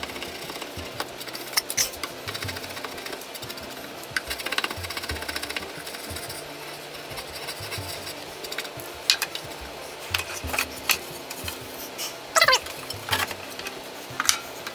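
Draw knife shaving a wooden vise chop: irregular scraping strokes of the blade through the wood, a few sharper ones near the end, over quiet background music.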